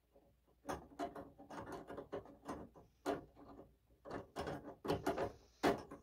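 Steel pliers clicking and scraping against the terminals of a microwave oven's high-voltage capacitor while they are held across them to short out any stored charge. It is an uneven run of small clicks and scrapes, with a slightly sharper click near the end.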